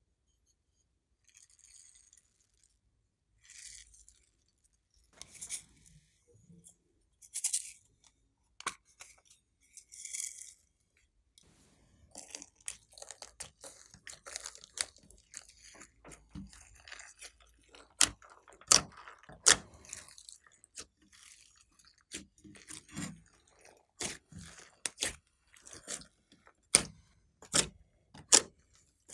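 Foam beads trickling into glossy slime, then hands squishing and kneading the slime with the beads mixed in, making crunchy crackles and sharp wet clicks. The clicks come thicker and louder from about halfway through.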